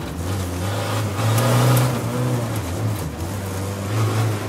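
Land Rover Defender 90 Td5 race car's five-cylinder turbodiesel engine running hard on a special stage, its pitch rising and falling as the throttle is worked.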